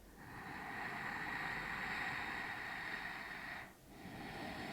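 A person's long, steady breath lasting about three and a half seconds, a brief pause, then the next breath begins.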